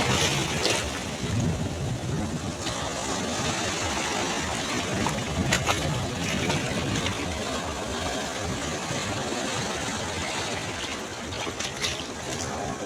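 Sea waves breaking and washing up a beach: a steady rushing noise of surf, loudest in the first second as a wave breaks, with a few sharp clicks of spray or stones later on.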